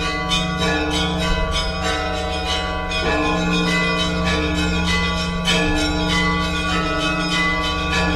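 Orthodox church bells ringing a continuous peal: smaller bells struck several times a second over the long-held hum of larger, deeper bells.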